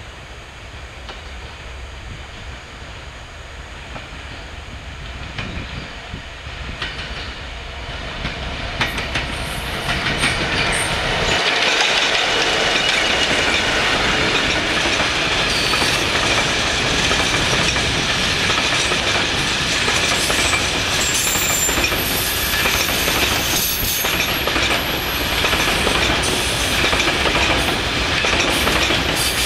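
EWS Class 66 diesel locomotive, a two-stroke V12, growing louder as it approaches and passes. Its long train of ballast wagons then rolls by with a steady rumble and wheel clatter over the rail joints, and a thin high wheel squeal in the second half.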